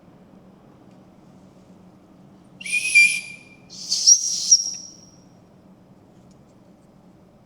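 Two short, high whistle-like tones a moment apart, the second higher-pitched than the first.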